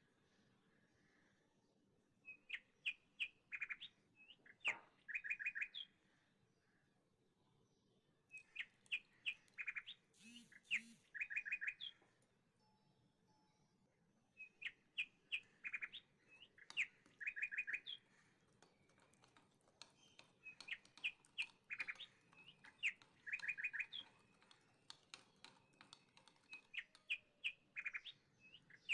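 Small birds chirping: groups of quick, high trilled chirps every few seconds, with short quiet gaps between.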